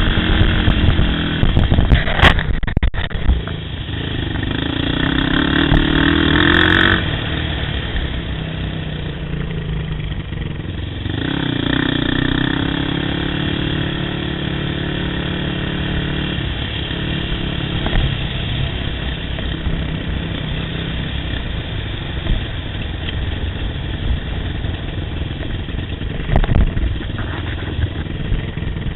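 Yamaha YFZ ATV engine running under way on a trail. Its pitch climbs as it revs up about five seconds in and again about eleven seconds in, then it settles to a steadier run. There are sharp knocks near the start and once near the end.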